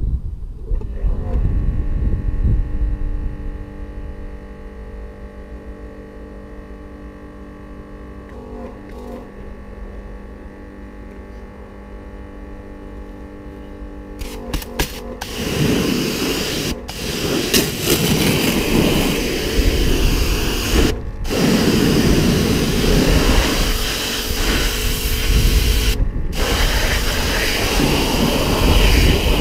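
Electric pressure washer: its motor hums steadily at first, then about halfway in the jet starts, hissing and splattering as it rinses wheel cleaner off an alloy wheel and tyre. The spray breaks off briefly twice.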